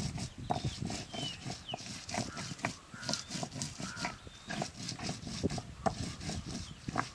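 Dried red chillies being crushed and ground on a flat stone slab with a hand-held round stone: stone rasping and knocking on stone in short, irregular strokes.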